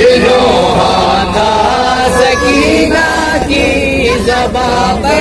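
Men chanting a noha, an Urdu lament for Karbala: a lead reciter sings into a microphone while other men's voices chant along with him.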